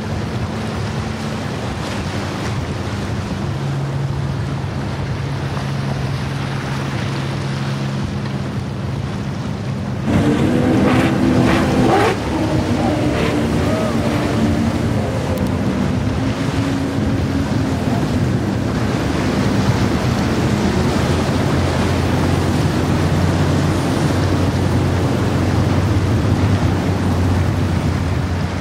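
Motor yachts' inboard engines droning as the boats run through an inlet, over the rush of wake and surf, with wind buffeting the microphone. About a third of the way in a louder pitched engine sound swells up and cuts off about two seconds later.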